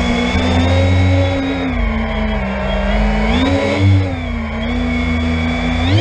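12S X-class FPV quadcopter's brushless motors and propellers whining, the pitch swelling and dipping with the throttle a couple of times, then rising sharply at the very end as the throttle is punched.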